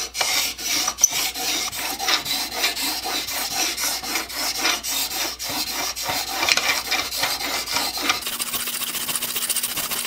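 Stanley No. 8 plane blade, held in a roller honing guide, scraping back and forth on a soaked water stone in quick, repeated strokes. The blade is being ground down deeply to take out a large number of nicks in the edge.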